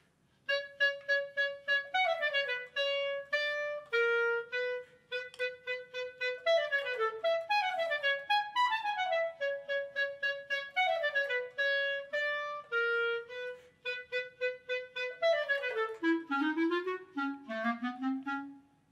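A solo woodwind instrument playing a staccato passage: short, detached notes in quick runs that repeatedly fall in pitch, dropping into its low register near the end.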